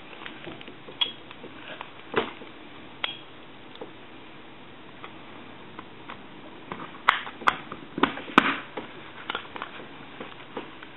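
Small metal parts of a rotary telephone dial clicking and tapping as it is reassembled by hand, scattered single clicks with a cluster of sharper, louder ones about seven to eight and a half seconds in.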